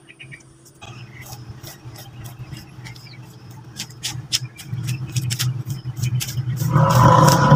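Mitsubishi brush cutter with a nylon trimmer line running as it cuts grass, starting about a second in and growing louder, with many sharp ticks. It revs hard near the end.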